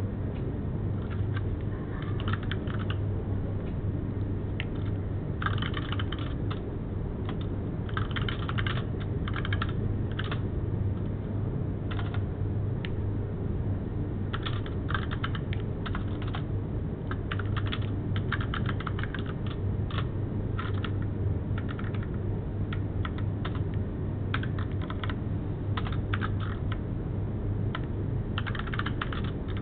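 Typing on a computer keyboard: irregular runs of keystrokes broken by short pauses, over a steady low hum.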